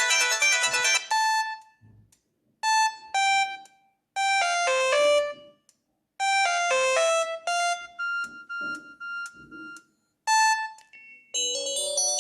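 Samsung SGH-C170 mobile phone playing its built-in tones through its own speaker. A ringtone ends about a second in, followed by a string of short, bell-like chime melodies of a few notes each, separated by brief silences. A new ringtone begins near the end.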